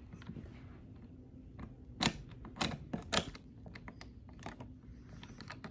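52-inch Harbor Breeze ceiling fan motor humming faintly and steadily, with a run of sharp clicks over it: three loud ones about half a second apart, midway, and lighter ticks around them.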